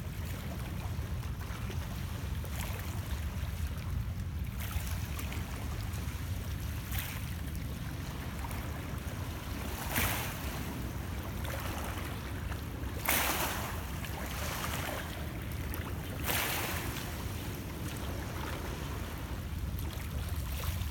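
Small lake waves lapping and splashing against shoreline rocks in shallow water, one soft wash every few seconds, over a steady low rumble.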